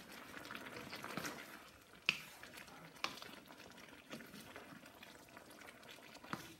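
Okra and squash for pinakbet cooking in a hot wok while a wooden spatula stirs them. The spatula knocks sharply against the pan a few times.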